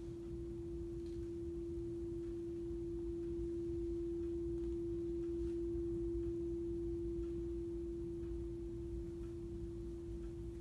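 Steady pure 340 Hz tone from a pair of loudspeakers, with no speech. It swells in loudness around the middle and eases off toward the end as the listening point moves through the two-speaker interference pattern, loudest at the constructive central line.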